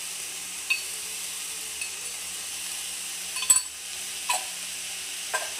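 A steel spoon clinking against a steel container and the kadai while coconut oil is spooned into the snake gourd stir-fry: about five short clinks, the loudest about three and a half seconds in, over a faint steady hiss from the pan.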